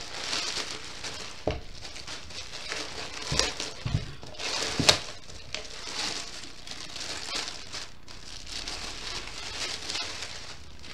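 Clear plastic bag crinkling and rustling as it is worked off a plastic skateboard, with a few short knocks as the board is handled.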